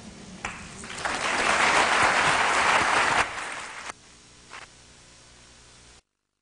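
Audience applauding, swelling over the first second or so and cut off abruptly after about three seconds, followed by a faint steady hum until the sound stops completely.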